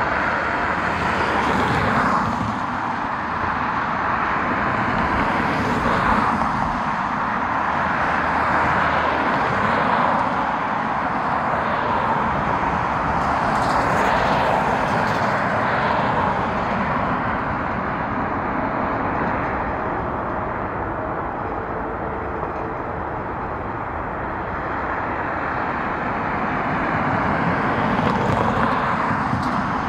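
Steady rushing engine noise that swells and eases every few seconds.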